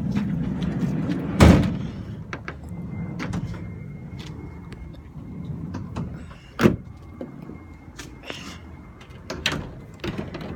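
A pickup truck's door being opened and shut with several heavy thuds, the loudest about a second and a half in, as someone climbs into the vehicle; rubbing and knocking of the phone's microphone being handled.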